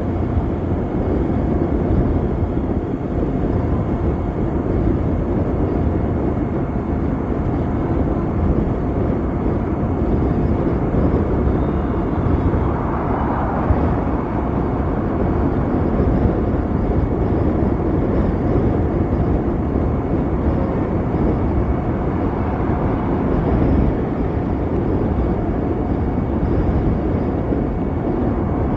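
Riding an Ather 450X electric scooter: a steady rush of wind and road noise, with a faint steady high whine above it and a brief swell about halfway through.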